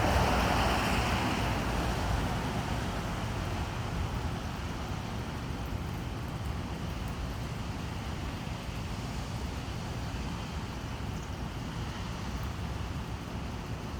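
Steady rushing noise of distant road traffic, louder over the first two seconds and then easing to an even level.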